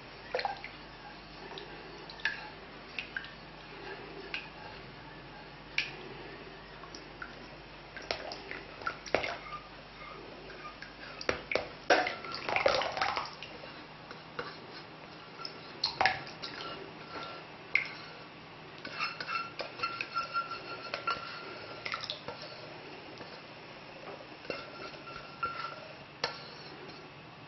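Melted chocolate mixture poured from a saucepan into a bowl of dry ingredients, a silicone spatula scraping the pan out, with scattered clinks and knocks of pan against bowl, busiest about halfway through.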